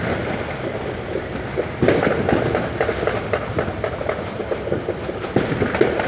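Fireworks and firecrackers going off all around at New Year: a continuous crackle of many pops and bangs near and far, with a louder bang a little under two seconds in.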